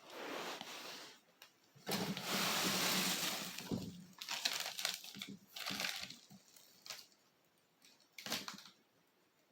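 Irregular rustling and handling noises in uneven bursts, the longest about two seconds in, then shorter ones and a last brief one near the end.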